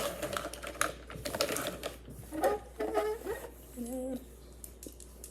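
Rapid clicking and clattering of plastic fidget toys being handled and moved about, with a couple of short pitched sounds partway through.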